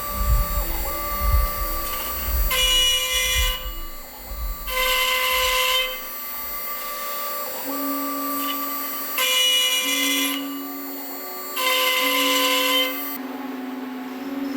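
CNC router spindle running with a steady whine, getting louder and hissier four times for about a second each as the bit cuts into wood.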